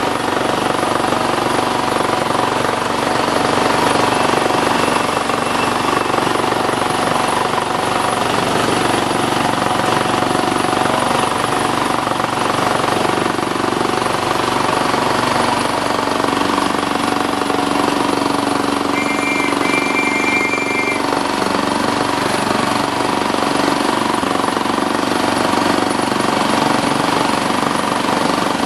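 A 7¼-inch gauge miniature train running along its track, with a steady loud rattle from its wheels and carriages.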